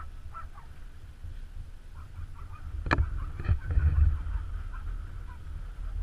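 Scattered waterfowl calls over a steady low rumble of wind on the microphone. About three seconds in come two sharp knocks, half a second apart, then a brief louder burst of rumble.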